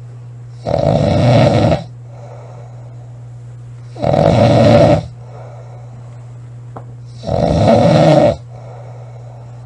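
A woman snoring loudly in her sleep: three snores, each about a second long, coming about every three seconds, over a steady low hum.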